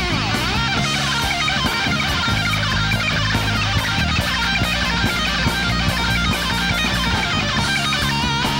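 Live rock band playing: a fast electric guitar lead full of string bends and quick runs, over bass guitar and drums with a steady cymbal beat.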